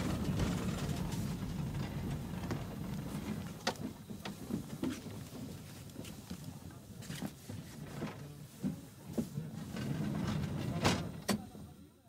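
Inside a tram car under way: a steady low running rumble, eased somewhat after a few seconds, with scattered clanks and knocks from the car body and fittings. The sound fades out at the very end.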